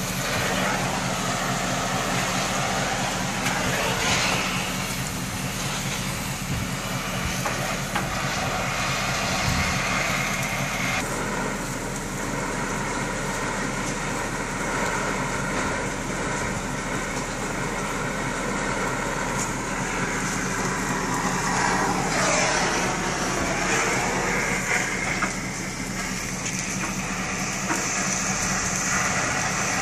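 An engine idling steadily, with a few metallic knocks and a short creaking squeal of metal about two-thirds of the way through.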